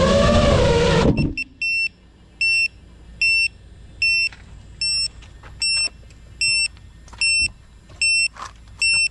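FPV quadcopter motors humming, then cutting off abruptly about a second in. A steady string of loud, high electronic beeps follows, about one every three-quarters of a second.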